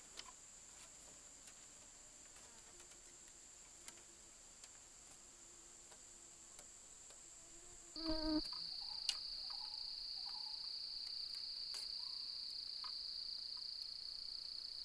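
Steady, high-pitched drone of jungle insects (cricket-like), which jumps to a lower, louder tone about halfway through, with a brief louder sound at that moment. Faint light ticks of thin bamboo strips being handled and woven.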